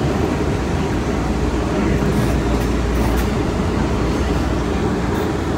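MBTA Green Line light-rail car running along the track: a steady low rumble of wheels and motors, with a few faint high ticks.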